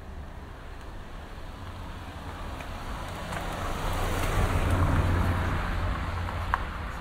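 A motor vehicle driving past on a city street: engine rumble and tyre noise swell over a few seconds, are loudest about five seconds in, then fade away.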